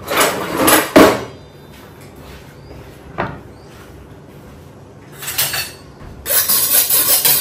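Kitchen clatter: knocks and a sharp clank about a second in, another knock near three seconds. Near the end a steel knife blade starts scraping rapidly back and forth on a granite countertop, sharpening it.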